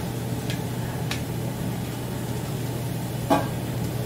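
Steady frying noise from egg and chopped scallions cooking in a wok over a constant stove hum. A metal spatula clicks lightly against the wok twice, then knocks it once more sharply about three seconds in.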